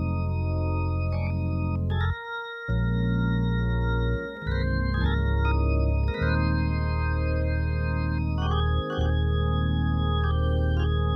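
Hammond organ playing sustained gospel-style extended chords (sus and flat-nine voicings) that change every second or so over a held bass note. The bass drops out briefly about two seconds in.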